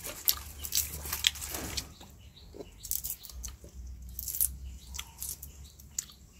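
Fresh lychees being peeled and eaten close to the microphone: the thin shells crackle as they are torn open, with wet chewing and sucking in between. The sounds come in short, irregular bursts of crackles and clicks.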